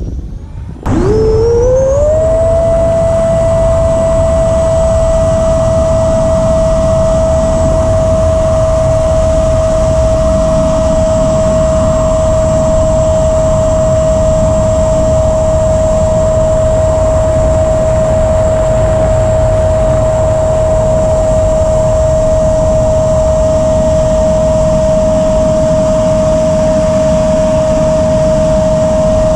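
FMS Futura 80mm electric ducted fan jet's fan running on a 6S battery: about a second in it rises quickly in pitch to a high, steady whine and holds there over a rushing noise.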